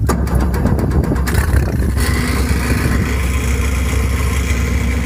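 Mercury 60/40 outboard jet motor running on a jet boat, a steady engine note that shifts about two seconds in.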